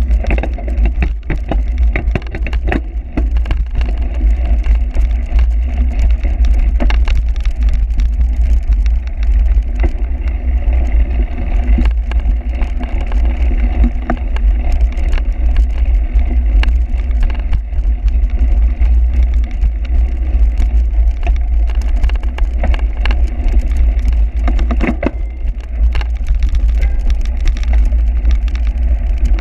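Wind buffeting a bike-mounted camera's microphone as a cyclocross bike is ridden over rough ground, with constant sharp clicks and rattles from the bike.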